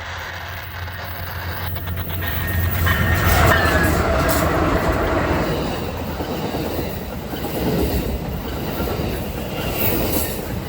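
A train passing close by: a low rumble and steel wheels clattering over the rails, with a brief thin squeal about two seconds in as it grows loudest.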